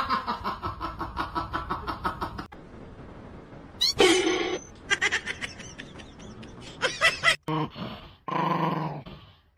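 A small dog growls and snarls with its teeth bared near the end. Before that there are rapid even pulses in the first two seconds and a short loud sound about four seconds in.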